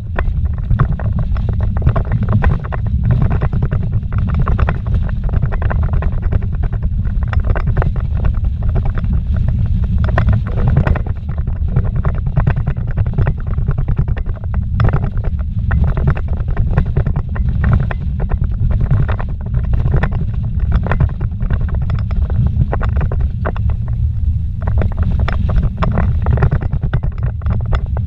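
A vehicle driving fast over a rough dirt road, heard from inside the cabin: a loud, steady low rumble from the engine and tyres, with constant small rattles and knocks as it jolts over the bumps.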